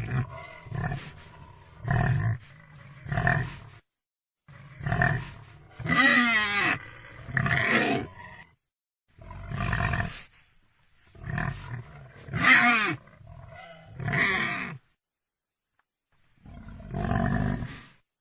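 Pig grunting and squealing in a string of short calls, about a dozen in all, a few of them rising and falling in pitch, with brief silent pauses between groups.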